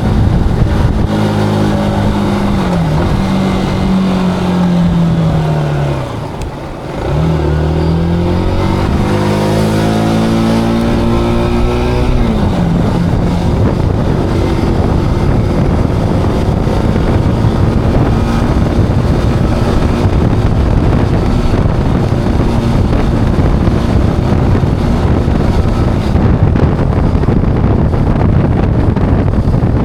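Zontes cruiser motorcycle engine on the road. Its note falls as the bike slows to a low point about six seconds in, climbs again as it pulls away, and drops once more around twelve seconds. After that steady wind noise on the camera microphone covers most of the engine.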